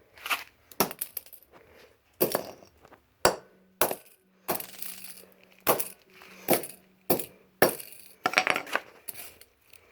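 Metal parts of a fidget spinner being knocked and broken apart: a dozen or so sharp metallic clinks and knocks at irregular intervals, some ringing briefly.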